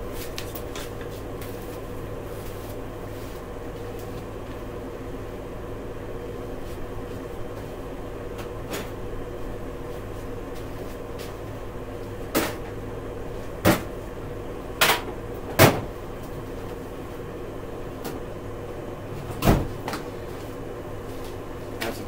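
About five sharp clunks of a metal tool chest's drawers being opened and shut, four close together in the middle and one a few seconds later, over a steady background hum.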